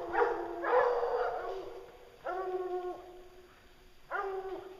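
Hunting hounds on a bear baying: a series of long, drawn-out bawls, close together at first and then spaced a second or two apart.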